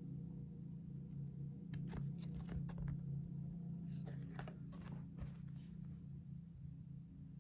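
Paper and packaging handled in an unboxing, rustling and crinkling in two spells, about two seconds in and again about four seconds in.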